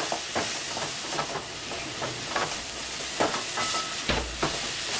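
Chopped beetroot sizzling in oil in a metal pan while a wooden spatula stirs it, scraping and knocking against the pan at irregular moments.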